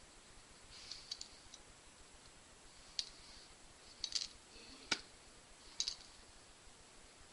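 Light handling of makeup items: a few scattered, faint clicks and taps, about half a dozen, with one sharper tap near the middle, over faint steady hiss.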